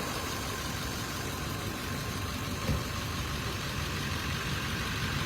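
A motor vehicle's engine idling steadily, with one faint click about two and a half seconds in.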